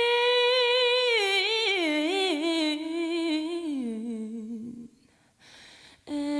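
A single voice sings or hums a long wordless melisma with no accompaniment. It holds a high note, then winds down in small wavering turns to a low note that fades out about three-quarters of the way through. After a short pause a new, lower note begins just before the end.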